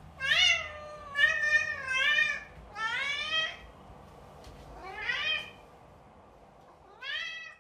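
Domestic cat meowing repeatedly: six drawn-out meows, several rising in pitch, with a pause of a second or two before the last.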